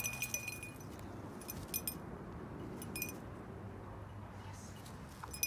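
Light metallic tinkling and clinking in a few short bursts, the sharpest just before the end.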